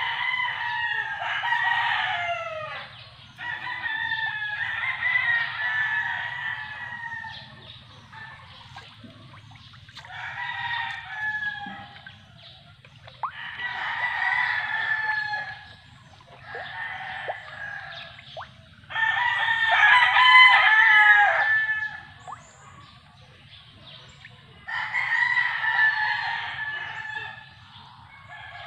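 Rooster crowing over and over: about seven crows, each two to three seconds long, with short gaps between them.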